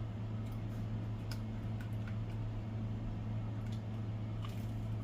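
Quiet eating sounds: soft chewing with a few scattered mouth clicks and ticks, over a steady low hum.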